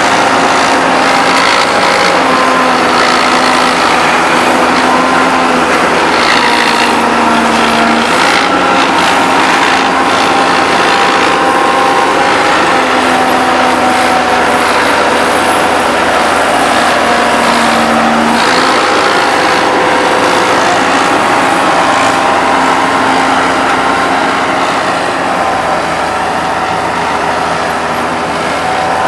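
Heavy diesel engines of road-paving machinery, an asphalt paver and a dump truck, running steadily. The engine note shifts up and down several times and eases off slightly near the end.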